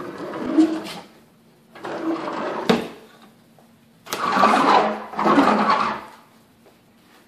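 Old wooden kitchen drawers sliding open and shut, wood scraping on wood in four rubbing strokes of about a second each, the second ending in a sharp knock as a drawer hits home.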